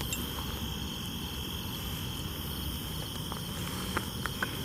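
Crickets chirring in a steady, high-pitched night chorus, with a few light clicks in the second half.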